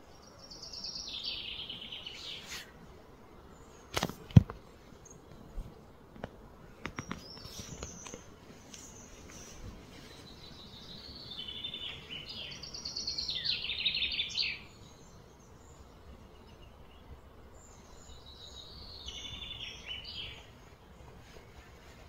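A songbird singing three trilled phrases, each sweeping down in pitch over one to three seconds. A couple of sharp knocks about four seconds in are the loudest sound, with a few fainter clicks after them.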